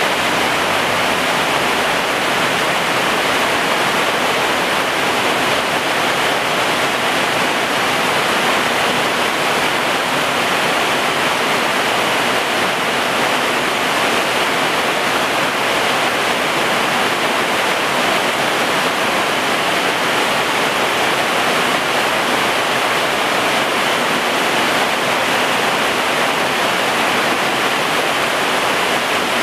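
Heavy rain pouring down steadily, a dense, even hiss that keeps the same level throughout.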